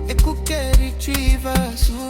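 Afrobeat-style song with a steady drum beat, bass and melodic lines, no vocals sung at this moment.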